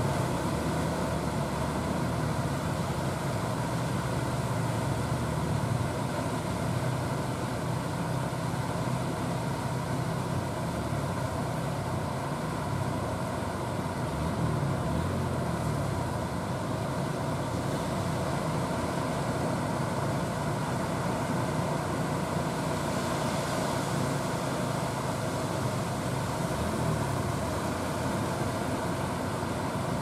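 Small fishing-boat engine running steadily at a constant pitch, over the rush of rough, fast-flowing river water.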